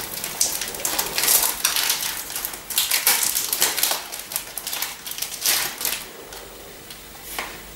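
Foil Pokémon booster-pack wrapper crinkling and tearing as it is pulled open by hand, a run of sharp rustles that dies down about six seconds in.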